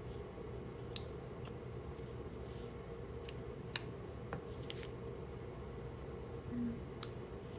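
Paper crafting at a table: a handful of scattered, sharp clicks and snips of scissors and paper being handled, over a steady low hum.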